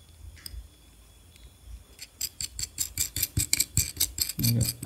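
Small metal nut and washer clicking against a 3 mm bolt as the nut is threaded on by hand. It is mostly quiet at first, then from about two seconds in comes a quick run of tiny metallic clicks, several a second.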